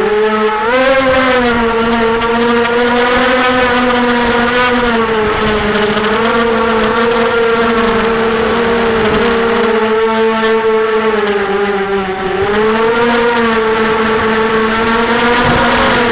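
Motors and propellers of a 250-size FPV racing quadcopter whining, recorded up close by its onboard camera; the pitch rises and falls with the throttle, dipping about twelve seconds in and then climbing again.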